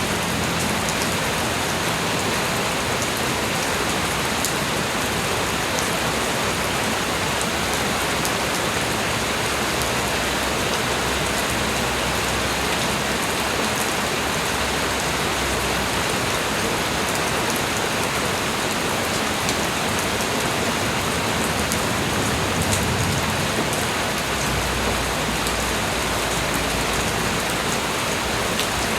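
Light rain falling steadily: an even hiss of rain with scattered individual drops ticking through it.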